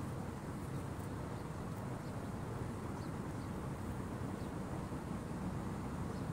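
Steady low outdoor rumble, with no distinct events standing out.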